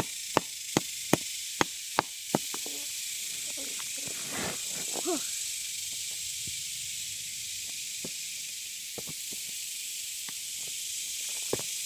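Six quick hammer strikes on limestone, about two and a half a second, chipping at the rock around a pyrite nodule to break it loose. A few faint taps and scrapes follow, over a steady high hiss.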